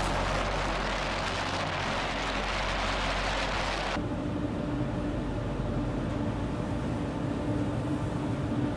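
Wind and sea rushing past a warship's deck under way, a loud even hiss. About four seconds in it cuts sharply to a lower, quieter rumble of a ship at sea with a steady hum.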